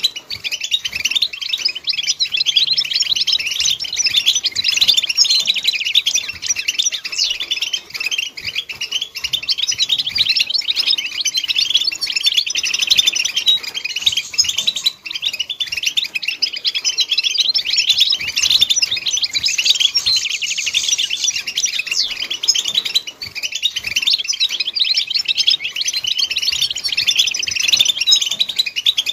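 European goldfinches singing: a dense, unbroken stream of rapid, high twittering chirps and trills.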